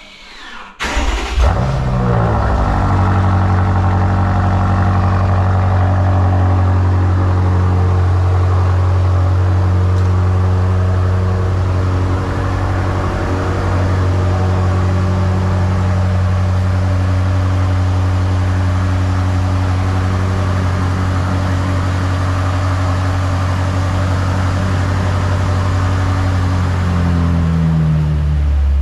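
BMW M8 Competition's twin-turbo V8 cold-starting from the remote: the engine fires about a second in with a brief rev flare, then settles into a steady idle heard from the exhaust.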